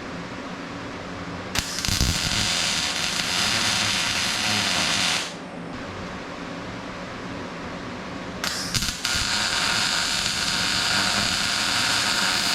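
Welder tack-welding steel engine mounts to a truck frame. There are two bursts of crackling arc, each several seconds long, over a steady low hum.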